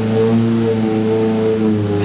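External starter motor spinning the Ford Cosworth V8 of a 1991 Osella FondMetal Formula 1 car through the back of its gearbox during start-up. It makes a loud, steady hum with a thin high whine over it.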